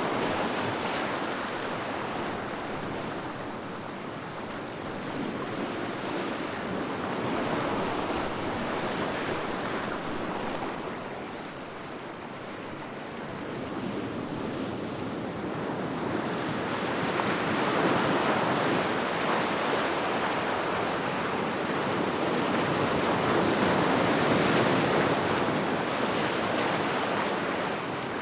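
Sea waves breaking and washing on a shore, a continuous surf rush that swells and ebbs slowly, growing louder in the second half.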